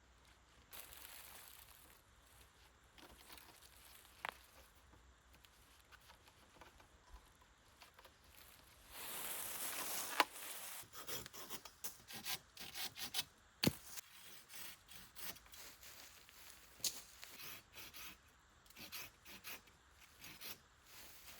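Wood being worked with a hand tool: after a quiet stretch with a single click, a run of irregular rubbing and scraping strokes starts about nine seconds in and continues, interspersed with sharp clicks.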